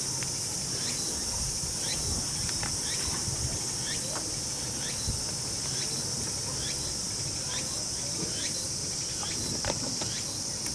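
Steady, high-pitched chorus of insects, crickets by the sound, with scattered light ticks.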